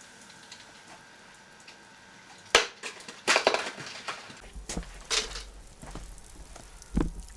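A plastic bottle holding liquid nitrogen drops onto a concrete floor and lands with one sharp crack about two and a half seconds in. Crackling and crinkling noises follow, with a few more sharp cracks and a low rumble of the camera being moved.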